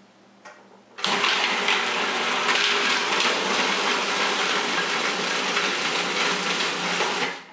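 Electric food processor running, pureeing a batch of cooked stock vegetables. Its steady whir starts abruptly about a second in and runs about six seconds before stopping near the end.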